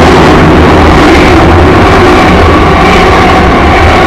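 Freight train wagons passing at very close range inside a tunnel: a steady, very loud rushing rumble of the train, echoing off the tunnel walls, loud enough to push the recording to its limit.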